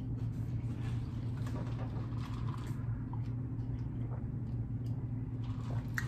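Steady low room hum with faint small clicks and mouth sounds as a man drinks from a plastic cup.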